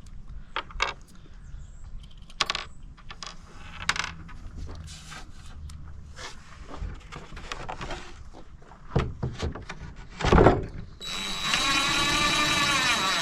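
Scattered light clicks and knocks of screws and boards being handled, then about 11 seconds in a DeWalt cordless driver runs steadily, its motor whine bending in pitch as it drives a screw into the shelf wood.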